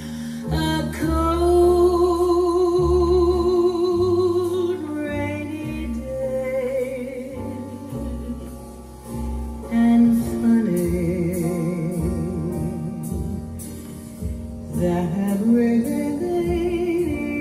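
A female jazz singer sings a slow ballad in long held notes with vibrato, accompanied by piano. It is a 1967 live recording played back through hi-fi loudspeakers in a room.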